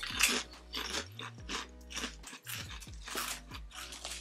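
Several people crunching and chewing Thai sweet chilli potato crisps: a run of short, irregular crunches, with background music underneath.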